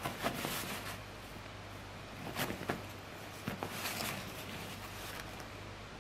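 Shredded toilet paper rustling and crinkling as a cat paws and bites at it, in short bursts near the start, about two and a half seconds in and around four seconds. A low steady hum runs underneath.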